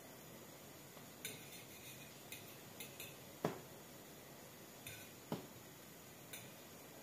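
Metal fork clicking and tapping against a stainless steel pot while turning small pancakes frying in oil: a string of light ticks, with two sharper knocks around the middle.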